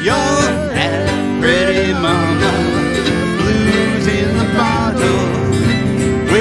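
Old-time country-blues band playing an instrumental passage: harmonica lead with bending, wavering notes over a strummed twelve-string acoustic guitar and other plucked strings.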